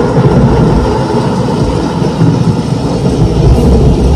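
Thunder rumbling as a storm sound effect played over a sound system: a loud, steady low rumble with no break.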